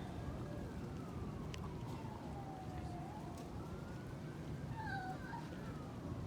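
A distant siren wailing, its pitch sliding slowly up and down over a few seconds at a time, with a cat's short meow about five seconds in, over a steady low street hum.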